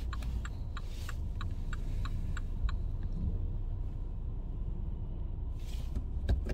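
Car cabin with the engine idling as a steady low rumble, and the turn-signal indicator ticking about three times a second until it stops a little under halfway through. A brief rush of noise and a click come near the end.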